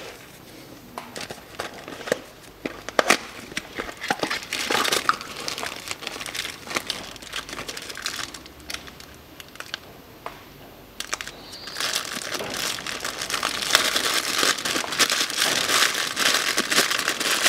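Plastic wrapping crinkling as a new filter is unwrapped by hand: scattered crackles at first, then, from about two-thirds of the way in, louder continuous crinkling.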